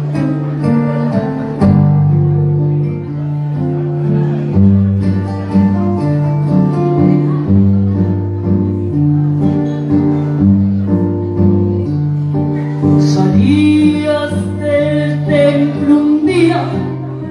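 Karaoke backing track playing an instrumental intro of guitar over steady bass notes; a woman starts singing into a microphone about thirteen seconds in.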